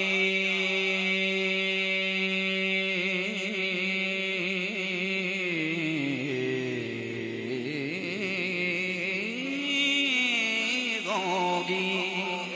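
A man's voice singing a naat with no words, only a drawn-out vowel: one long steady note for about three seconds, then a slow wavering run that dips and rises again.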